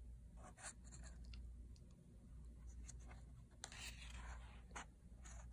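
Faint paper handling on a picture book: a few light ticks and a brief scratchy rustle about three and a half seconds in, over a low steady hum.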